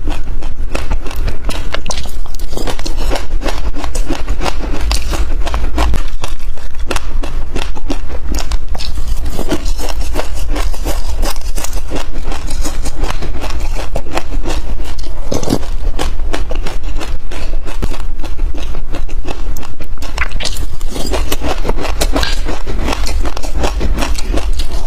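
Close-miked crunching of sesame seeds being chewed, a dense, continuous run of small crackles and clicks over a steady low rumble, with a metal spoon scraping and scooping through the seeds in a glass dish.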